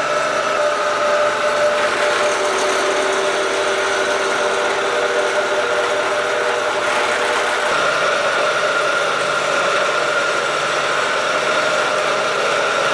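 Vertical milling machine running steadily, its face-mill cutter taking a cut about 5 mm deep across the top of a steel railroad-rail anvil's horn, with several steady tones over the machine noise. The pitch shifts a little about eight seconds in.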